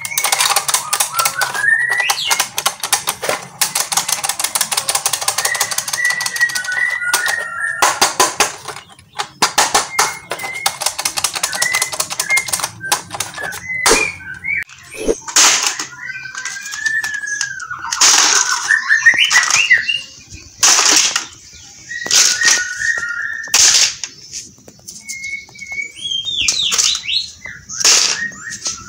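Battery-powered toy M16 rifle's electronic firing sound effect: a rapid rattle of clicks over a wavering, whistle-like tone that slides up and down, played in several bursts with short breaks.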